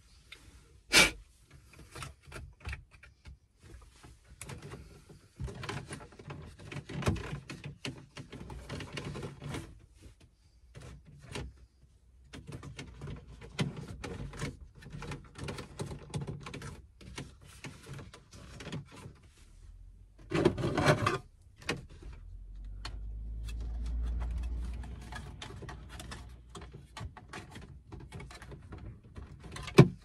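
Hands working on a van's stripped steering column: irregular clicks, knocks and rubbing of plastic and metal parts, with a sharp click about a second in and a brief clattering burst about two-thirds of the way through. A low rumble swells and fades soon after.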